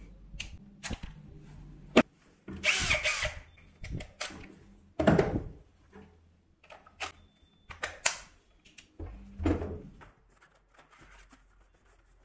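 Plastic cordless-tool battery packs and tools handled on a workbench: a series of clicks and knocks, the sharpest about two seconds in, with short scraping rustles between them.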